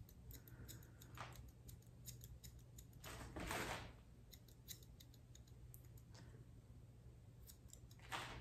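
Grooming scissors snipping through a bichon frise's curly face fur: a run of quick, faint, crisp snips. A brief louder rustling rush comes about three and a half seconds in.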